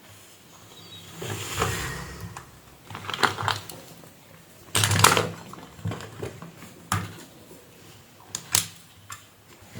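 Irregular small clicks and taps from hand tools and small hard parts being handled, with a few louder clatters spread through.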